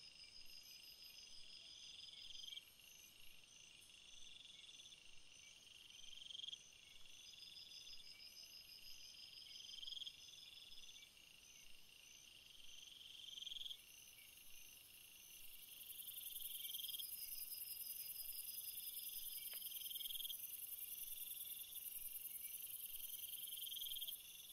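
Faint insect song: chirping phrases repeat about every two seconds, each swelling for about a second and stopping short, over a fast pulsing trill higher up. A steady high buzz joins about two thirds of the way in.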